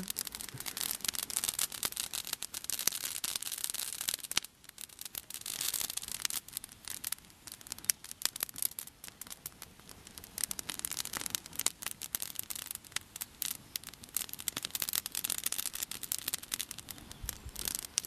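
Wood campfire crackling, a dense run of sharp snaps and pops.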